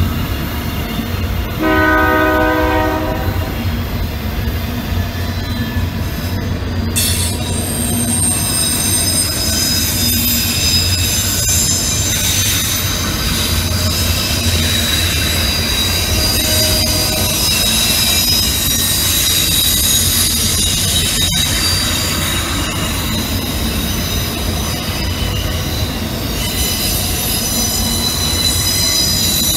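A freight train of autorack cars rolls past with a steady low rumble. The cars' wheels squeal high-pitched from about seven seconds in. A locomotive horn sounds one short chord-like blast about two seconds in.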